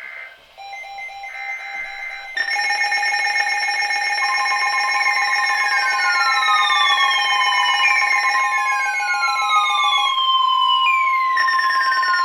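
The SAME digital header of a NOAA Weather Radio flash flood warning ends in short bursts of warbling data tones. Several weather alert radios then go off together, mixing steady beeping tones with repeated falling siren-like sweeps. From about four seconds in, the steady 1050 Hz warning alarm tone sounds under them.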